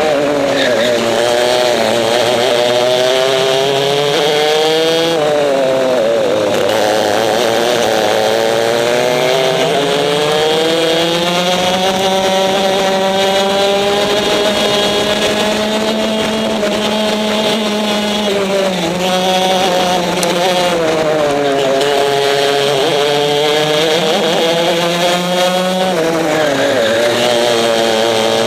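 Racing kart's engine heard onboard at full throttle, its pitch climbing along the straights and dropping sharply as the driver lifts for corners, about three times, with a long high-revving stretch in the middle.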